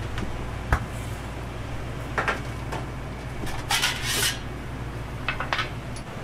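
Kitchen clatter: dishes and utensils knocking and clinking now and then, with a denser rattle about four seconds in, over a steady low hum that stops near the end.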